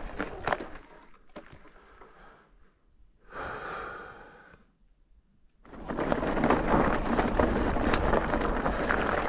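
Wind on the microphone and the rolling noise of a moving e-bike. It fades to near quiet about a second in, with one short rush of sound in the middle, then comes back strongly about six seconds in.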